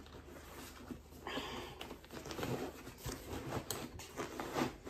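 Spiral-bound notebooks being pushed down into a packed fabric backpack: rustling and scraping of the covers against the bag, with a short sliding hiss about a second in and a few light knocks.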